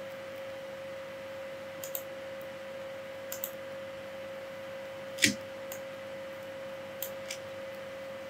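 A few soft computer-mouse clicks, the loudest about five seconds in, over a steady faint high tone and hiss.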